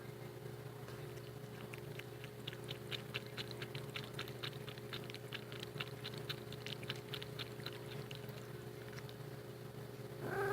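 Cat lapping water, a quick run of soft wet clicks about four or five a second that stops after about eight seconds, followed by a brief meow at the very end.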